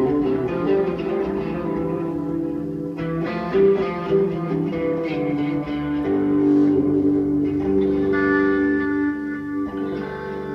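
Guitar music: a guitar playing held notes and chords that change every second or so.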